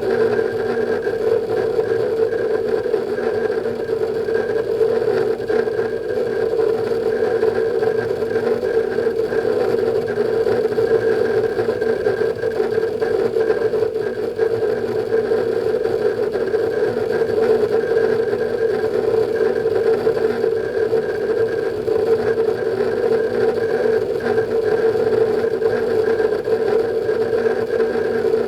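Synology DS220+ NAS with Western Digital Ultrastar hard drives running under a benchmark load: a steady hum from the spinning drives and the cooling fan.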